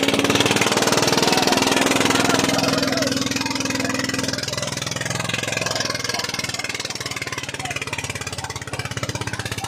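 Eicher 241 tractor's single-cylinder diesel engine labouring under the heavy drag of a disc harrow, a rapid steady firing beat that grows quieter through the second half.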